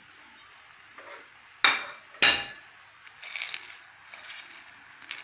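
A ceramic plate clinking against an aluminium kadhai as dry fruit is tipped off it into cooked rice. There are two sharp knocks about half a second apart near the middle, with lighter clinks around them.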